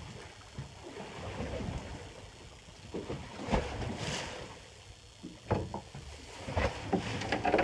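Wind buffeting the microphone and sea water slapping against the hull of a small fishing boat, with a few sharp knocks and splashes, the strongest about three and a half seconds in and near the end.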